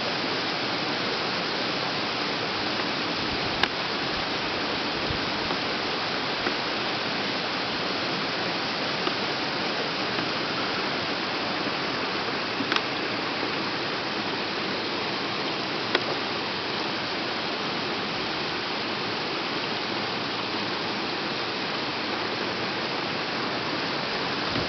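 Shasui Falls waterfall: a steady, unbroken rush of falling and splashing water, with a few faint ticks.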